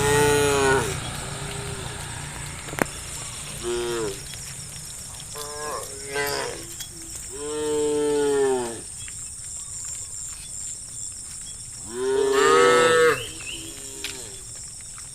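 Herd of cattle mooing: a string of separate moos, some short, one long drawn-out moo about eight seconds in and the loudest one about twelve seconds in.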